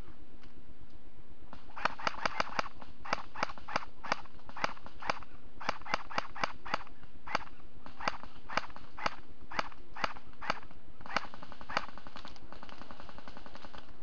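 Airsoft guns firing a string of sharp single shots, irregularly spaced at roughly two to three a second with some quick clusters, starting about two seconds in and stopping near the end.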